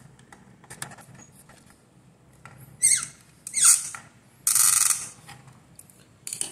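Screwdriver tightening a wire into the screw terminal of a mechanical timer switch: a few small clicks, then two short squeaks falling in pitch about halfway through, followed by a louder half-second scrape.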